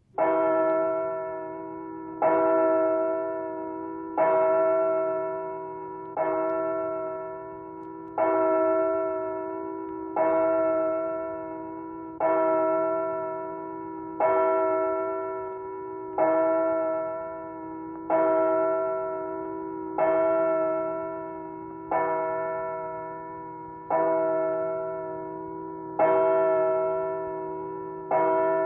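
A single church bell tolling one note, struck about every two seconds, fifteen strokes, each ringing out and fading before the next.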